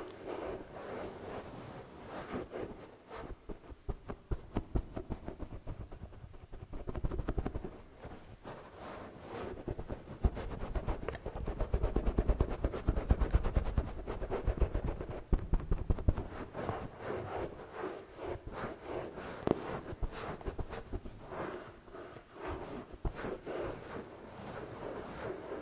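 ASMR trigger sounds close to the microphone: fingernail tapping and scratching. About halfway through there is a denser, louder stretch of fast tapping with a low rumble, like brushing on the microphone.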